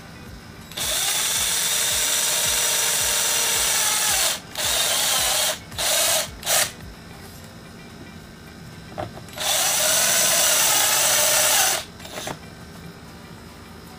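Handheld electric drill boring a hole through a scooter's plastic underbody panel. It runs for about three and a half seconds, gives three short bursts, pauses, then runs again for about two seconds.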